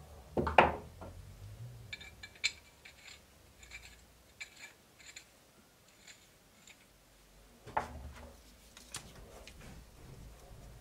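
Small metal parts handled at a bench vise: a knock about half a second in and another near eight seconds, with a run of light metallic clicks and scrapes in between as a polished metal end cap is screwed onto the threaded stud of a cleaver handle.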